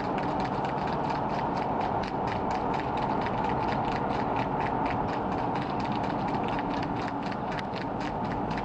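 Vehicle driving at speed on a highway: a steady engine and road hum with a rapid, even clicking of about five or six ticks a second running over it.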